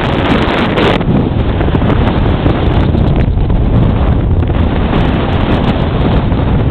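Strong blizzard wind buffeting the camera microphone: a continuous loud rush of wind noise, heaviest in the low rumble, swelling and easing in gusts.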